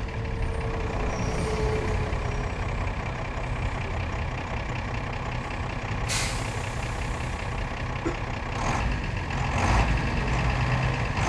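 Mercedes-Benz OF-1721 bus's OM-366LA turbo-diesel engine running steadily, with a short hiss of compressed air from the air brake system about six seconds in. The engine grows somewhat louder near the end.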